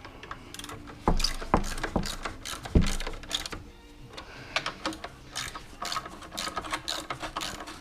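Hand tools and metal parts knocking and clicking during work on the spreader's engine: a few sharp knocks in the first three seconds, then a run of lighter clicks and taps.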